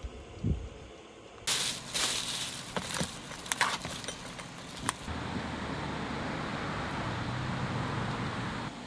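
Crackling and crinkling of a plastic film lid being peeled off a heated instant-rice tray. This is followed by a steady low rumble that stops suddenly near the end.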